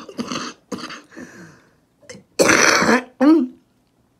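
A person coughing and clearing their throat close to the microphone: a harsh cough about two and a half seconds in, then a shorter, voiced one straight after.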